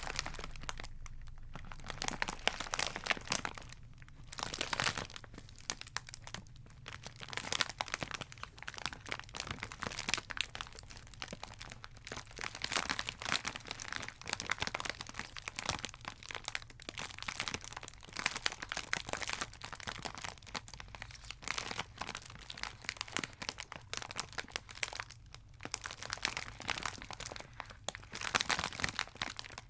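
Chocolate wrappers being crinkled and handled close to the microphone: a dense, continuous crackle with a few short pauses.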